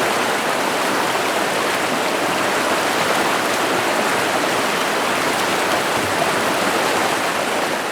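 Little River's water running and rushing over rocks: a steady, even stream sound with no let-up.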